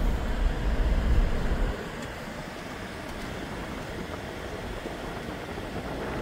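Steady vehicle noise heard from inside a truck's cab, with a heavy low rumble for the first two seconds that then drops to a steadier, softer noise. A freight train of hopper cars is rolling past outside.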